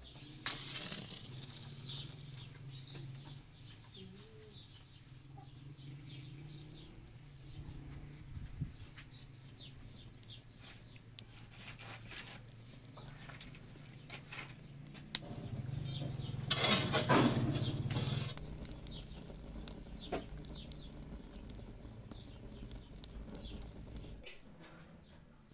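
Twigs and split branches crackling and snapping as a wood fire catches in a stone oven, with sticks being pushed into place. About two-thirds of the way through comes a louder rush of noise lasting about two seconds.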